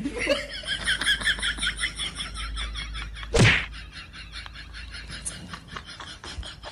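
Rapid, high-pitched chirping that fades after about three seconds, and a single loud thump about three and a half seconds in.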